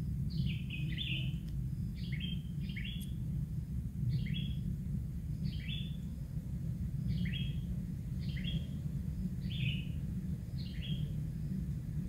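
Kingfishers in a nest burrow giving short, high chirping calls, about a dozen of them at roughly one a second, over a steady low rumble.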